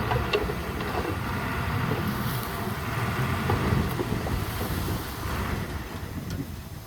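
Bulldozer's diesel engine running steadily, with a few light metallic clinks, easing off somewhat near the end.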